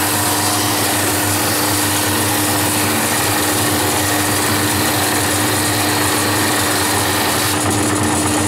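Jet 22-44 oscillating drum sander running with its feed conveyor, its motor giving a steady hum while a strip of wood passes under the sanding drum. The sanding adds a steady hiss that stops near the end as the board comes out the far side.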